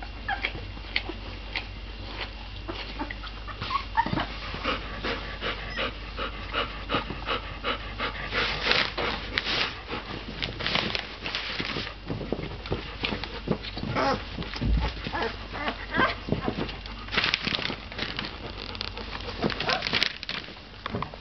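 Bernese mountain dog puppies squeaking and whimpering in many short, high cries as they nurse at the adult female.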